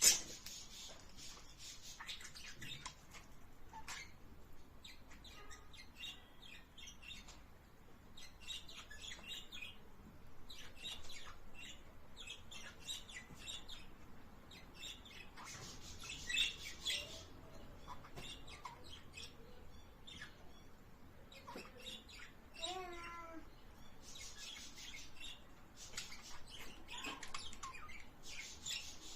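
Budgerigars chattering: bursts of quick high chirps, clicks and short warbled notes, coming in clusters with brief pauses.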